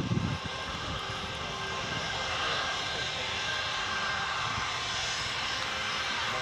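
Airbus A319 twin jet engines running at high power on the takeoff roll: a steady jet noise with whining tones, growing a little louder over the first couple of seconds and then holding. A brief low rumble at the very start.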